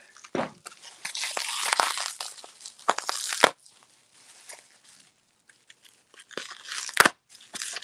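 Plastic bubble wrap being handled and pulled open, crinkling and crackling densely for the first three seconds or so, then quieter scattered rustles, with a sharp snap about seven seconds in.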